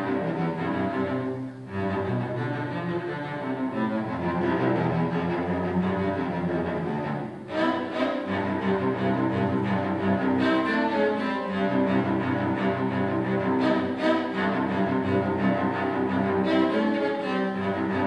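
Solo cello played with the bow: sustained notes, with two short breaks, about one and a half and seven and a half seconds in.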